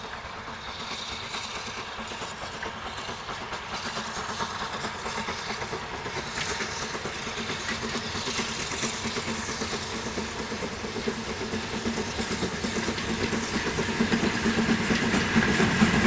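BR Standard Class 9F 2-10-0 steam locomotive hauling a train of coaches as it approaches, its exhaust and the clatter of wheels on rail growing steadily louder.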